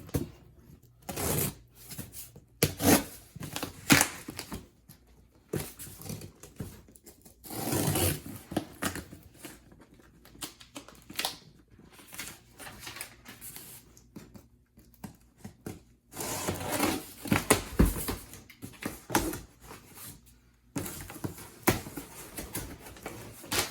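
Packaging being handled and torn open during unboxing: irregular rustling, crinkling and tearing, with now and then a sharp knock or tap.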